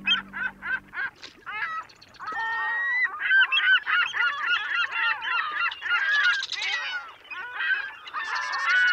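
A flock of birds calling over one another, many short repeated calls crowding together. The tail of a music track stops about a second in.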